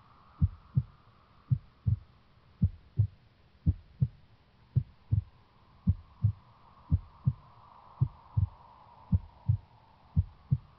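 Slow heartbeat: paired low thumps (lub-dub) repeating evenly about once a second, over a faint steady hum.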